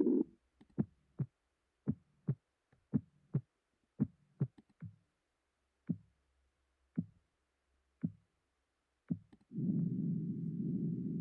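Synthesized ear-thumping sounds from a tinnitus sound simulator: short low thumps at an uneven, arrhythmic spacing, the kind of ear thumping or clicking that middle-ear muscle spasm produces. Near the end they give way to a steady low rumble.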